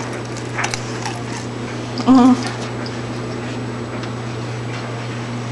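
Bull terrier taking a raw quail egg in its mouth: sparse faint clicks over a steady low hum, with one brief vocal 'mm'-like sound about two seconds in.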